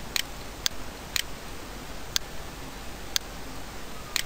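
Computer mouse clicking: about six short, sharp clicks at uneven intervals over a faint steady hiss.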